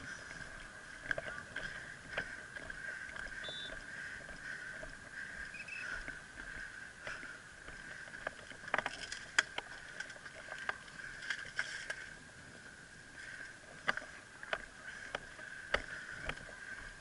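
Scattered sharp snaps of airsoft guns firing, coming in short clusters, over a steady high whine.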